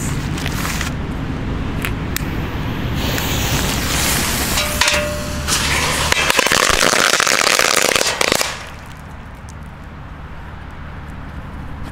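A firecracker string going off inside a metal pan: a dense, rapid crackle of bangs lasting about five seconds, which stops suddenly about eight and a half seconds in.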